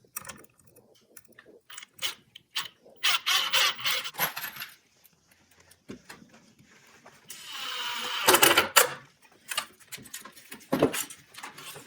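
Drill driving epoxy-coated deck screws into wooden boards in two short runs, the second, about eight seconds in, the louder, among clicks and clatter of screws and boards being handled.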